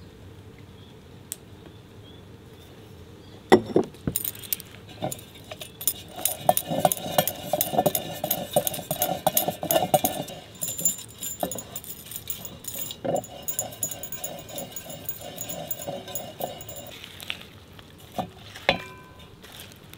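Kitchen utensils and dishes clinking and rattling, starting with a sharp knock a few seconds in and going on as quick, busy clatter.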